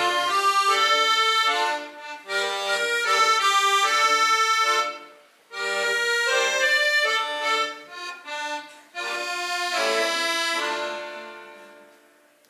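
Accordion playing a melody over chords in phrases with short breaks; near the end a final chord fades away, closing the piece.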